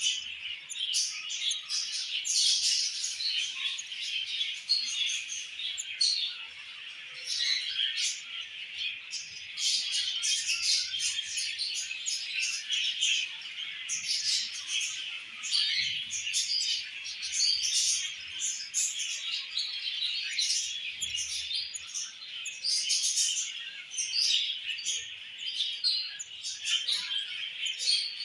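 Budgerigars chirping and chattering without a break, many short calls crowding one on another.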